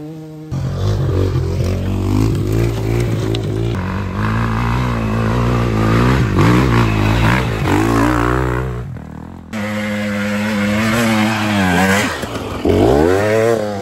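Off-road dirt bike engines revving up and down under throttle as the bikes climb a rough trail. The sound comes in several short clips, with abrupt cuts about half a second, four seconds and nine seconds in.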